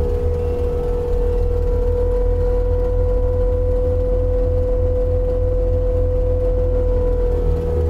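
Takeuchi compact track loader running at working throttle with its Shearex drum mulcher head spinning free and not yet in the wood. The sound is a steady, loud high whine over a low engine drone.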